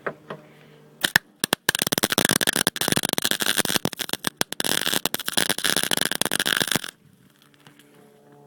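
Welding arc crackling: a few short tacks about a second in, then a steady run of about five seconds that stops abruptly. It is spitting because the underside of the new scuttle panel has been greased against rust.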